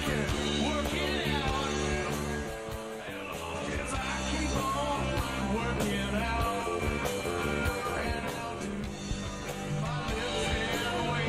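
Background rock and roll music with guitar.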